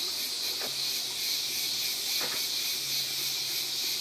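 A steady high-pitched hiss of outdoor background noise, with two faint clicks about half a second and two seconds in.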